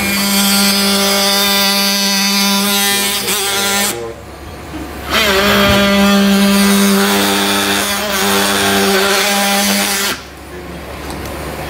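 Surgical power drill running with a steady whine, in two runs of about four and five seconds with a short pause between, as it cuts through bone that has grown over a Nuss bar to free the bar for removal.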